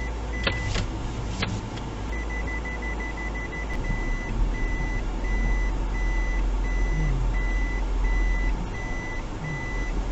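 A vehicle's reversing beeper sounds a repeating high electronic beep that quickens to a rapid run about two seconds in, then settles back to an even pace, over a steady low engine rumble. Two sharp clicks come in the first two seconds.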